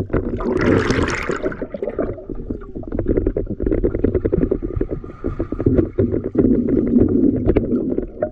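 Water splashing and sloshing around a bamboo raft being paddled, with many small knocks and a brief louder splash about a second in.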